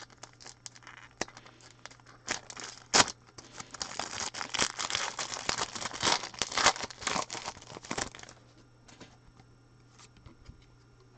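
Wrapper of a Clear Vision football card pack being torn open and crinkled by hand. The crackling is thickest from about two to eight seconds in, then dies away to faint handling.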